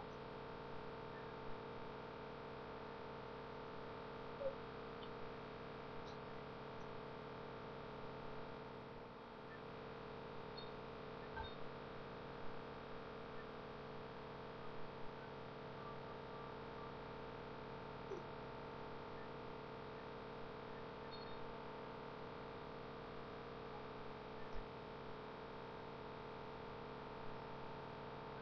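Steady electrical hum made of several fixed pitched tones, with a few faint clicks and ticks scattered through it.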